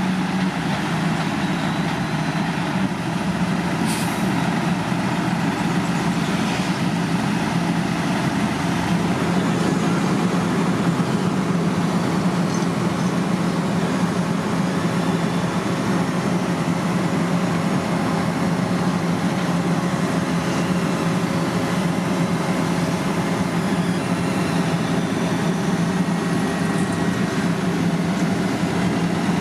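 Heavy diesel road-construction machinery running steadily with a constant low engine hum, with one brief sharp click about four seconds in.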